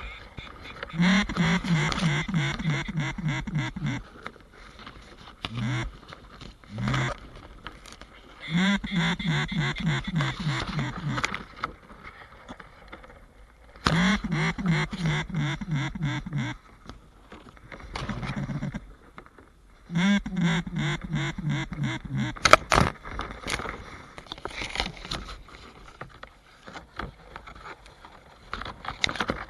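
Duck call blown in long runs of rapid mallard quacks, four times, each run dropping in pitch as it starts, with a few single quacks between. A single sharp knock comes near the end of the last run.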